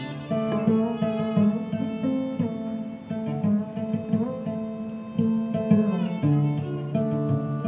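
Instrumental string music: violin and cello playing a moving line of short and held notes, with plucked notes mixed in among the bowed ones.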